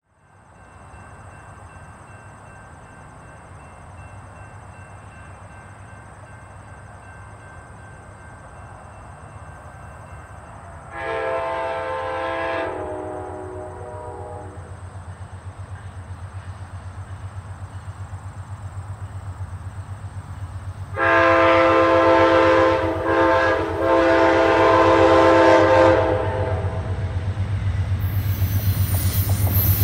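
An Amtrak GE P42DC diesel locomotive's air horn sounds for a grade crossing: one long blast about eleven seconds in, then a longer blast with a couple of short breaks about twenty-one seconds in. Under it the rumble of the approaching train grows louder toward the end.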